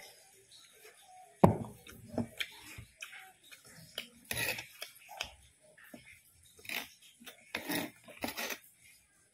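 Close-up eating sounds of a man chewing grilled fish and raw greens: irregular wet mouth clicks, smacks and crunches, with one sharp knock about a second and a half in.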